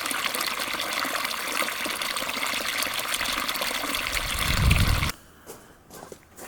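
Rushing water: a loud, steady, noisy rush that swells deeper just before cutting off abruptly about five seconds in.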